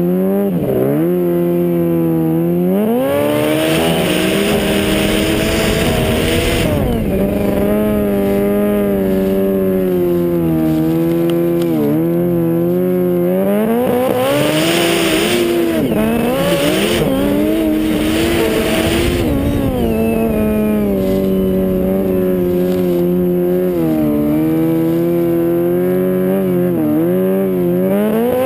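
Snowmobile engine under way, its pitch rising and falling again and again as the throttle is opened and eased across the snow. A few spells of rushing noise come through, about three seconds in and again near the middle.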